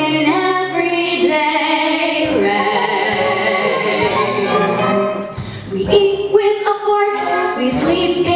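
Female voices singing a musical-theatre song into microphones, backed by a live orchestra, with a long held note a couple of seconds in and a short break about five seconds in.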